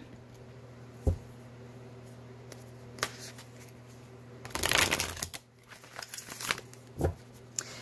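A deck of cards being shuffled by hand: a few single card taps and clicks, with one short burst of rapid riffling about halfway through.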